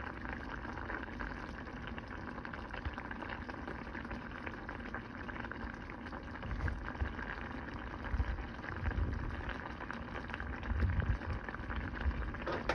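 Milk-and-butter Alfredo sauce with chicken and pasta bubbling in a saucepan: a steady patter of small bubbles popping, with a few low bumps in the second half.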